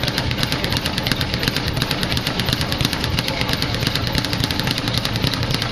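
Leather speed bag being punched nonstop, rattling against its rebound platform in a fast, steady drumming rhythm of knocks.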